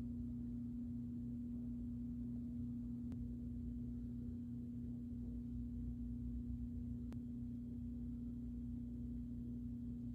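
A steady low hum held on one unchanging pitch, with a low rumble beneath it and two faint ticks.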